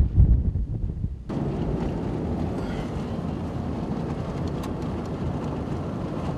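Gusty wind buffeting the microphone, which cuts off about a second in. A steady rush of wind and road noise from a moving vehicle follows.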